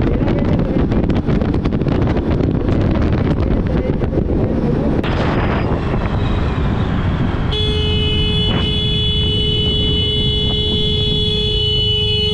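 Riding a 125 cc scooter at speed: wind buffeting the microphone over the engine and road noise. About seven seconds in, a vehicle horn starts and sounds steadily for about five seconds, until it cuts off.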